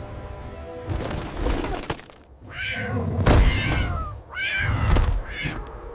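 A cat yowling twice, each call sliding down in pitch, over a deep low rumble, after a stretch of rustling.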